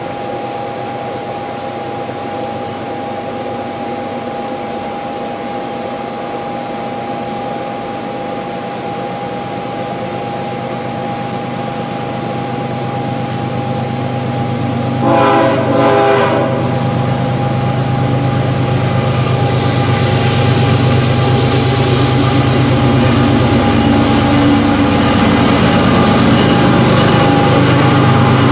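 CSX freight train approaching on GE Evolution-series (GEVO) diesel locomotives, the engine rumble growing steadily louder as it nears. About halfway through, the locomotive's air horn sounds two short blasts.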